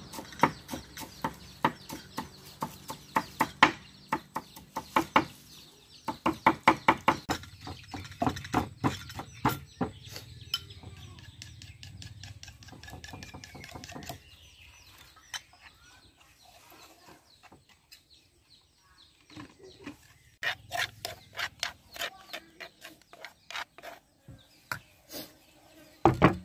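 Kitchen knife chopping leafy herbs on a wooden chopping block, quick strikes in runs for about the first ten seconds. Later a wooden pestle thuds in a mortar, softer, with chickens clucking in the background.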